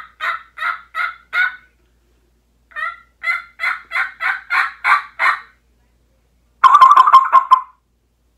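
A diaphragm turkey mouth call with its tape trimmed, blown to imitate a wild turkey gobbler. Two runs of short, evenly spaced notes are separated by a short pause, and about two-thirds of the way in comes a quick, rattling gobble lasting about a second.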